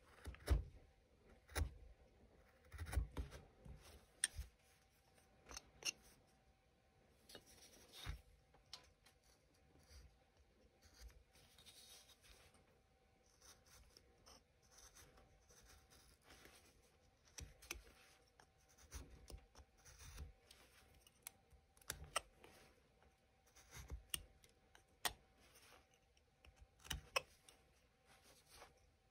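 Faint, short slicing and scraping cuts of a small hand carving blade paring basswood, coming at an uneven pace.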